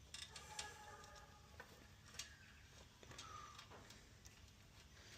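Faint, light clicks and rattles of a metal cam chain being fed up through a Honda CT110 engine by hand.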